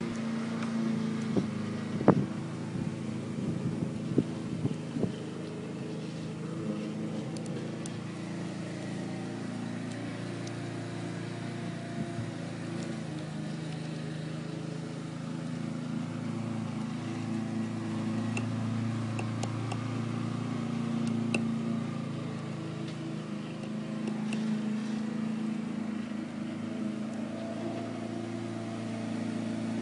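A motor running steadily with a low hum, and a few sharp taps in the first five seconds.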